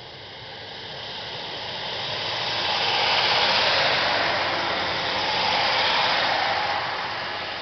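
Class 156 Sprinter diesel multiple unit pulling away from a station and passing close by: its underfloor Cummins diesel engines and wheels on the rails. The sound builds to a loud peak, swells a second time, then fades as the train moves off.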